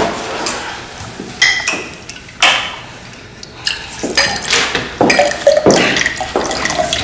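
A drink poured from a bottle into a glass, with a few sharp glass knocks and a clear clink along the way.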